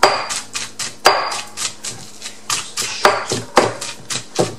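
Stone pestle pounding steamed tilapia in a stone mortar, with repeated sharp knocks of stone on stone at about three to four strokes a second.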